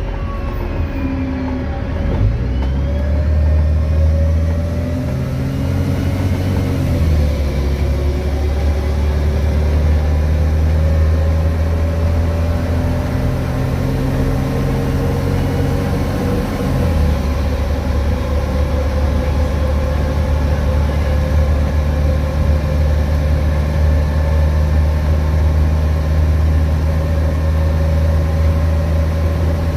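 VDL DB250 double-decker bus engine running under way, its low note shifting a few times as it changes gear. A steady whine runs over it, the hoover-like sound of the bus's electric cooling fan.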